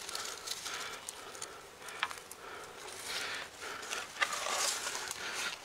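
Rustling of grass and leafy plants with a few light footsteps and sharp snaps, as someone moves through thick vegetation on a slippery bank.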